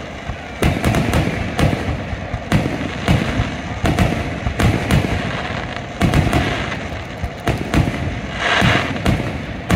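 Fireworks display: shells bursting in a rapid string of loud booms, about one or two a second, with a brief denser hiss a little before the end.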